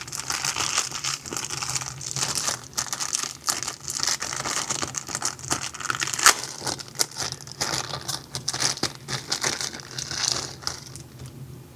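Packaging being handled and unwrapped from a car-audio tweeter, crinkling and rustling irregularly with scattered sharp crackles. It dies down about a second before the end.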